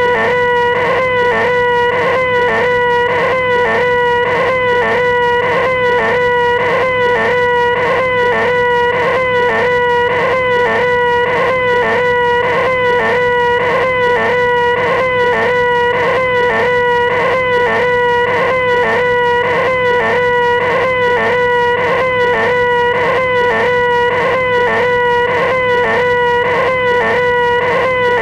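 A man's voice holding a high, nasal, whining 'eeeeh' at one steady pitch: the 'most annoying sound in the world'. It is looped without a break, with a small repeating hitch about twice a second.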